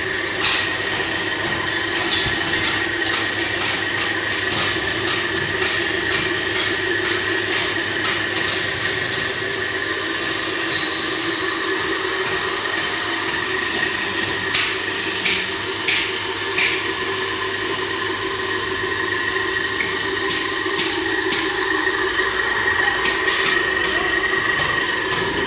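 Metalworking shop noise: a steady high machine whine over a low hum, with scattered metallic knocks and clicks, a few louder ones in the middle.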